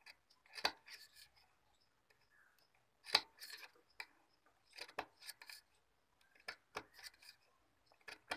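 Small scissors snipping a series of short, unevenly spaced cuts into cloth. These are notches clipped into a stitched seam allowance so the fabric can turn and lie easily.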